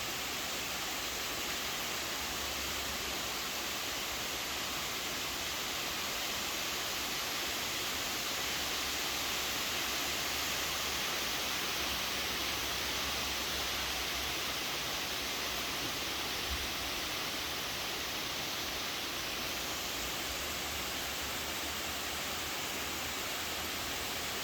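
Steady rain falling, an even hiss with no change in level, and one small knock about two-thirds of the way through.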